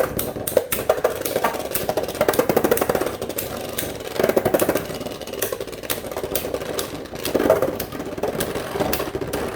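Two Beyblade spinning tops, one of them 3D-printed, whirring and scraping around a plastic stadium, with many sharp clicks as they collide.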